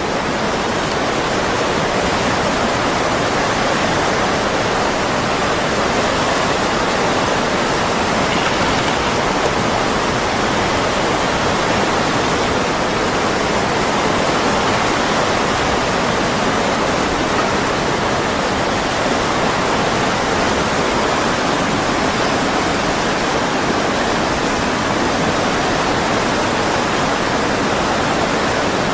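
Tsunami floodwater rushing steadily: an even, unbroken noise of moving water.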